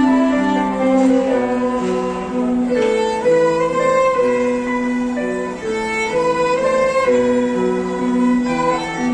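A small ensemble of violins playing a slow melody in held, bowed notes in harmony, with a digital piano accompanying.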